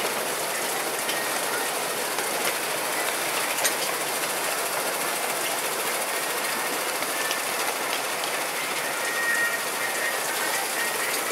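Miniature railway train running along its track, heard from aboard: a steady running noise of wheels on rails, with occasional sharp clicks.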